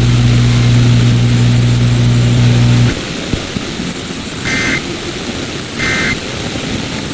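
A loud, steady low hum that cuts off abruptly about three seconds in, leaving a hiss. Three short high electronic beeps follow, about a second and a half apart.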